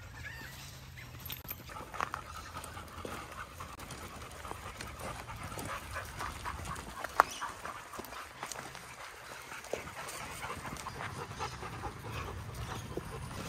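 Dogs panting, with scattered small clicks and one sharp tap about seven seconds in.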